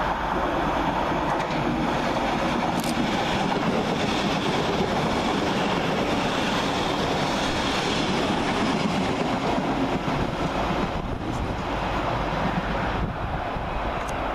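TransPennine Express Class 397 electric multiple unit running through the station at speed without stopping: a steady rush of wheel-on-rail noise as it passes close by, easing off about eleven seconds in as it draws away.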